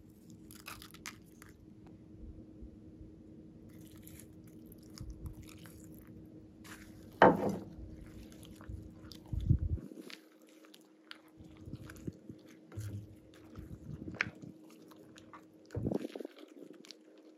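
Slime ingredients (glue, shaving foam, sequins and glitter) being stirred with a silicone spatula in a glass bowl: many small sticky clicks, with a few louder sudden sounds, the loudest about seven seconds in.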